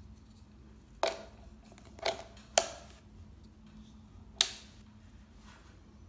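A plug-in socket tester is pushed into a UK 13 A double socket and the socket switched on: four sharp plastic clicks and knocks, at about one second, twice around two seconds and once near four and a half seconds, over a faint steady hum.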